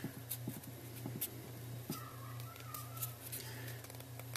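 Faint handling sounds of a foam rubber disc being pressed into the end of a PVC pipe: a few soft clicks and rubs in the first two seconds, then a faint brief squeak, over a steady low hum.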